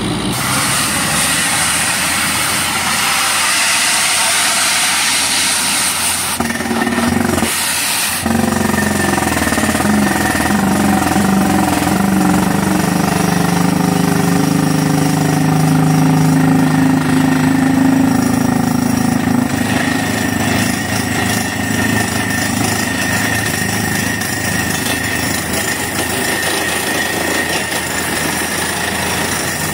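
Truck-mounted borewell drilling rig running loud and steady as its rod drills into the ground, the engine's low drone mixed with the rapid hammering of the drill, with a steadier low engine tone through the middle part.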